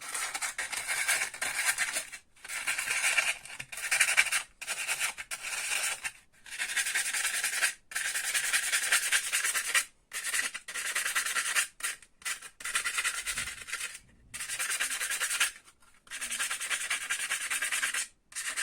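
Fine sandpaper rubbed back and forth over the steel core of a PME electromagnetic starter, in runs of scratchy strokes a second or two long with short breaks between them. It is scouring corrosion off the core's mating faces, the cause of the starter's loud hum.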